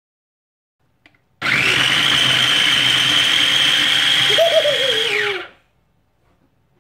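Electric mini food chopper running, chopping brinjal pieces: a steady high motor whine that starts about a second and a half in, runs about four seconds and drops in pitch as it winds down.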